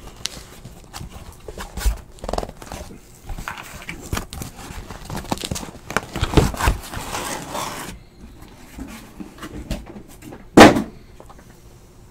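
Cardboard case and shrink-wrapped hobby boxes being handled on a table: scattered scrapes, rustles and light knocks, then one loud thump about ten seconds in as something is set down.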